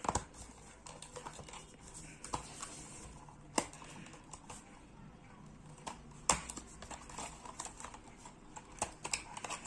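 Small cardboard earphone box being handled and pried open by hand: scattered clicks, taps and rustles of the packaging, with sharper snaps about three and a half and six seconds in.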